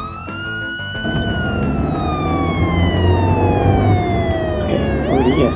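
Fire-engine wail siren: one slow wail that peaks about a second in, falls steadily for about four seconds, then rises again near the end. A low rumble joins beneath it about a second in.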